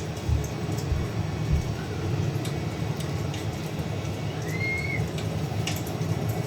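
Wood fire crackling: scattered sharp pops over a steady low rumble, with one brief high chirp about two-thirds of the way through.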